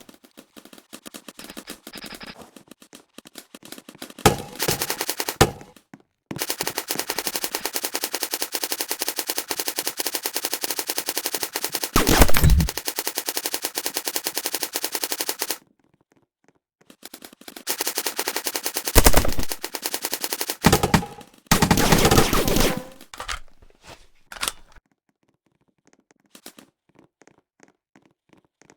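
Airsoft gun firing on full auto: one long burst of about nine seconds, then a shorter burst of about three seconds, with a few short bursts and loose shots around them and a couple of louder thumps in the middle.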